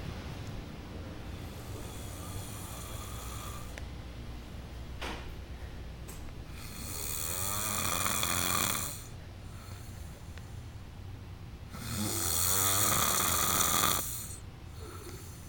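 A man snoring in a deep, drunken sleep: three long snores about five seconds apart, the last two louder and rattling.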